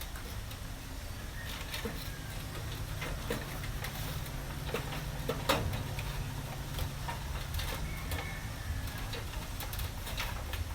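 Irregular clicks, taps and rattles of power-supply cables and plastic connectors being handled inside a desktop computer case, over a steady low hum.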